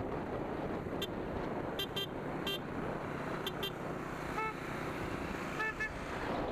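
Several short horn toots over steady wind rush and engine noise from a moving motorcycle. A quick run of higher-pitched beeps comes in the first half, then a lower single beep about two-thirds in and a quick double beep near the end.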